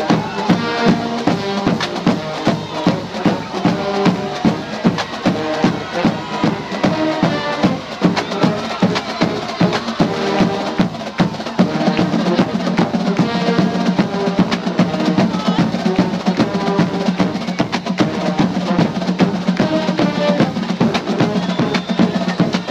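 Marching band drumline playing: Pearl bass drums and snare drums beat a fast, steady rhythm, with pitched notes held over the drums.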